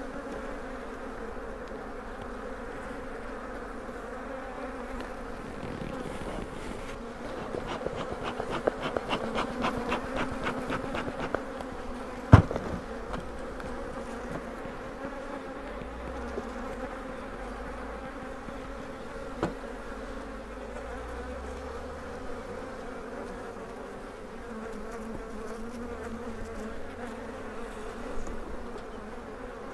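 Honeybees of an opened hive buzzing in a steady hum. About eight seconds in comes a quick run of clicks, then a single sharp knock a few seconds later and a softer one later on.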